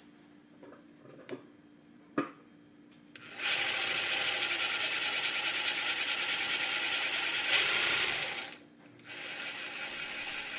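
Merrow industrial overlock sewing machine stitching an overlocked edge on denim. After a few light clicks it starts about three seconds in and runs steadily. It gets briefly louder, stops for a moment, then runs again more quietly near the end.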